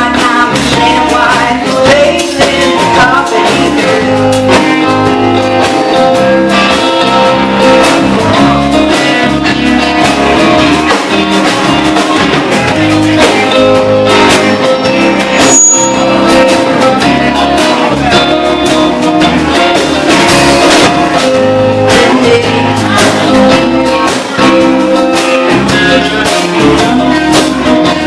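Blues-rock band music led by guitar, loud and continuous.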